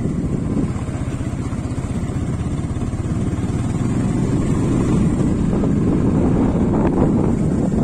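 TVS Apache 180's single-cylinder four-stroke engine running steadily as the motorcycle is ridden along a dirt trail, getting a little louder about halfway through.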